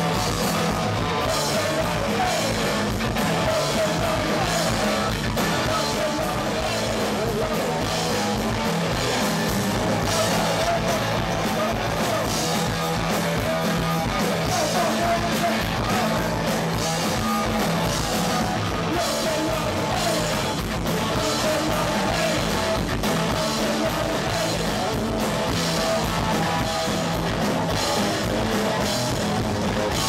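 Punk rock band playing live: electric guitar, bass and drums at full volume with a singer, heard from within the crowd in a small club.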